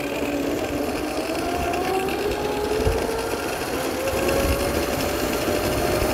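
Electric motor of a motorised Razor kick scooter whining as it runs, the whine slowly rising in pitch as the scooter picks up speed, over a steady rumble of wheels on the road and wind.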